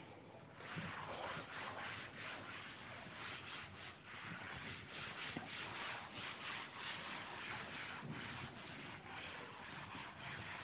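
A cloth duster rubbing and wiping chalk off a chalkboard in quick repeated strokes, starting about half a second in.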